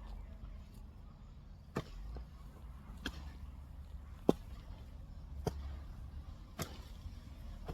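Hand weeding tool chopping into weeds and soil with regular strokes, five strikes about a second apart.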